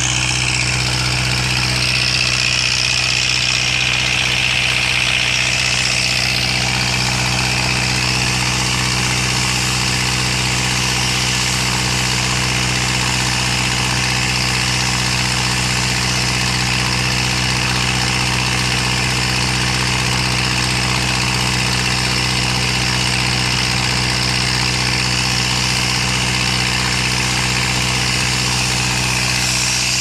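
Engine-driven air compressor running steadily under load, with a strong steady hiss of compressed air jetting from a hose wand and blasting dust off the ground.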